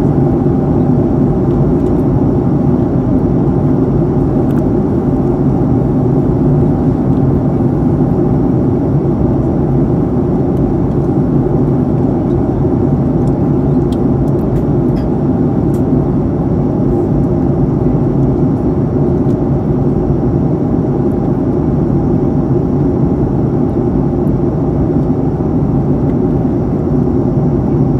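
Steady cabin noise of a Boeing 737-800 in flight, heard from a window seat: the even, low drone of its CFM56-7B turbofan engines mixed with the rush of air over the fuselage.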